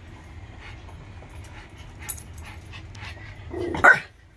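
Yorkshire terrier gives a short whine that rises into one loud, high-pitched yap near the end, over a low steady rumble.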